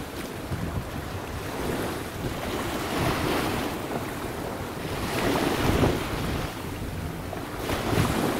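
Strong wind buffeting the microphone over a choppy sea, with the rush of waves; the noise swells in gusts a few times.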